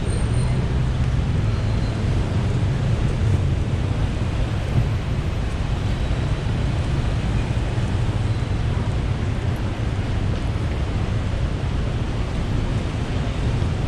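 Steady roar of traffic on a busy city road, an even low rumble with a constant hiss above it and no single vehicle standing out.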